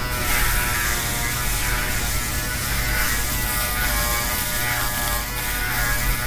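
Electric hair clipper running with a steady buzz as it is worked over a freshly shaved scalp around the ear.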